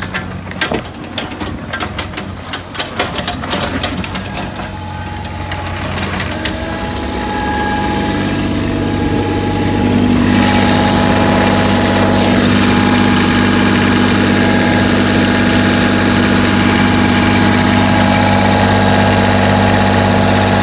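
Caterpillar 303SR mini excavator's diesel engine running, with sharp clicks and knocks over the first few seconds. The engine note builds from about six seconds in and runs steadily louder from about ten seconds in.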